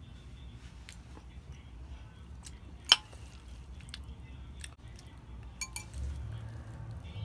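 Close-miked eating: chewing and wet mouth sounds with scattered small clicks. About three seconds in there is one sharp clink, the loudest sound, like a utensil striking a dish, and two lighter clicks near the end.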